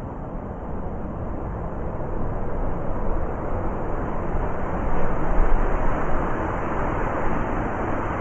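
Blizzard wind blowing in strong gusts, a steady rushing that builds to a loud gust around the middle and eases a little toward the end.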